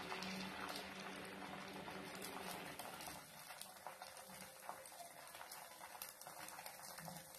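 Faint, soft scraping and light tapping of a steel ladle spreading dosa batter in circles over a hot cast-iron tawa.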